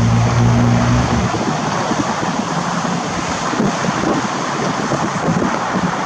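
Steady rushing noise of wind on the microphone mixed with city traffic. A low engine hum is heard for about the first second, then drops away.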